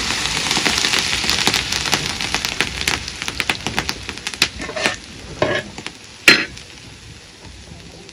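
Hot dark oil poured from a small metal pot onto a large pot of cooked rice sizzles, fading away over about four seconds, with the scrape and clink of a metal slotted ladle. A sharp metal clank stands out about six seconds in.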